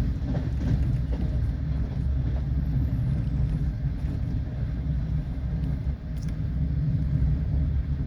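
Steady low rumble of a passenger train running at speed, heard from inside a sleeper carriage, with a faint knock about six seconds in.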